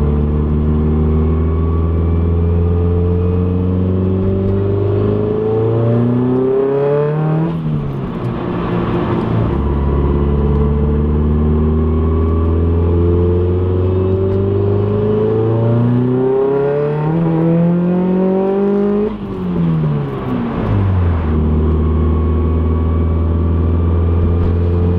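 Mazdaspeed 3's turbocharged 2.3-litre four-cylinder heard from inside the cabin, pulling hard twice through the gears with a catless downpipe and catback exhaust. The revs climb, then drop with a brief rush of air at each shift, about a third of the way in and again past the middle, and settle back to steady running. A faint high whistle rises with each pull.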